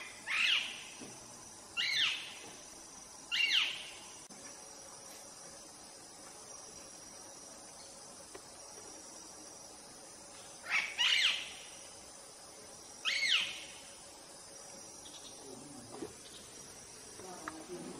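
Five short, loud rising animal calls, three close together in the first four seconds and two more a little past halfway, over a steady high-pitched insect drone.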